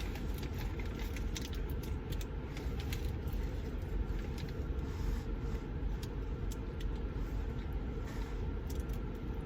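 Steady low rumble of a car's cabin with the engine idling, with a few faint clicks and rustles.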